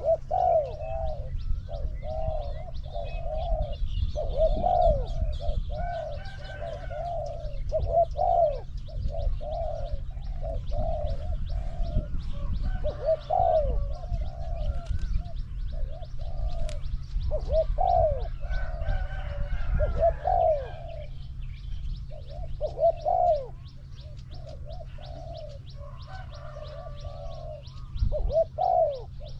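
Spotted doves cooing in repeated phrases, almost without pause: the caged decoy and a wild dove calling to each other during decoy trapping. Fainter chirps of small birds sound behind them.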